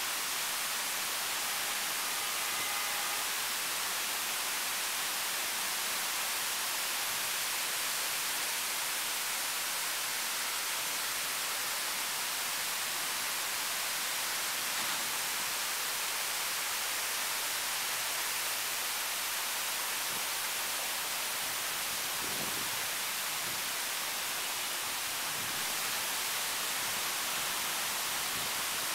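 Water sheeting down the ribbed walls of the Williams Tower Waterwall fountain, a steady even hiss of falling water.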